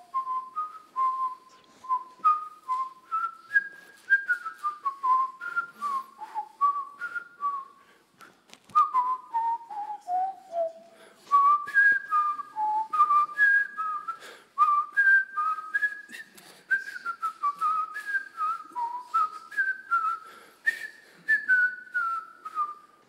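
A person whistling a tune of short notes that step up and down, with a slow falling run of notes in the middle and a brief break about eight seconds in.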